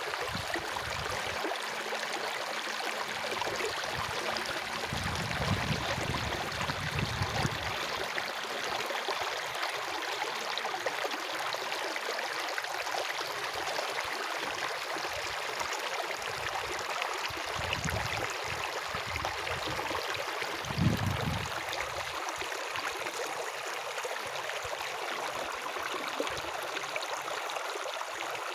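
Running water flowing steadily with a constant rushing hiss, like a stream. A few low rumbles come and go beneath it, one briefly louder about two-thirds of the way through.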